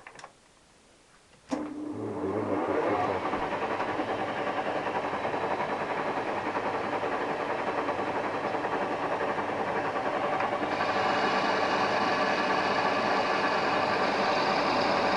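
A 1B61 metal-turning lathe starts up suddenly about a second and a half in and runs at a higher spindle speed, a steady mechanical whirr of motor and gearbox. The sound grows brighter and slightly louder about ten seconds in.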